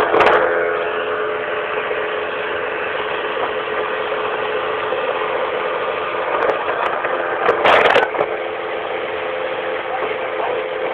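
A boat's outboard motor running steadily while the boat moves over the water. About seven and a half seconds in there is a brief, loud rush of noise.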